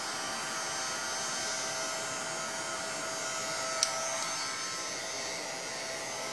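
Electric heat gun blowing steadily as it heats encaustic beeswax paint to overfuse it, with a faint steady whine from its fan and one sharp click about four seconds in.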